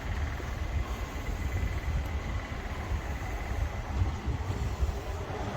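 Outdoor ambience dominated by a low, unsteady rumble of wind buffeting the microphone, with a faint steady high tone in the background.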